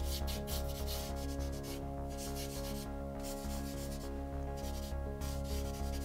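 Charcoal stick scratching and rubbing across drawing paper in many quick, repeated shading strokes.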